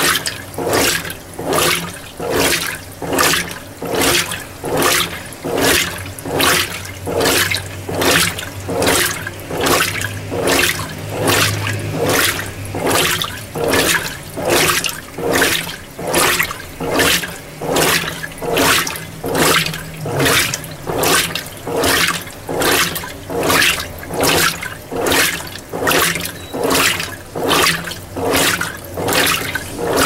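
Mueller Energy 8 kg top-load washing machine agitating a small load of white clothes in a low water level: rhythmic water swishes, about three every two seconds, as the agitator turns back and forth, over a low steady hum.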